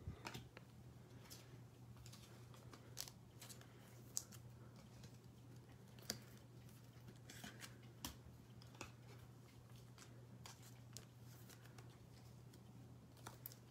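Near silence: room tone with a low steady hum and a scattering of faint, short clicks and ticks, about one every second or so.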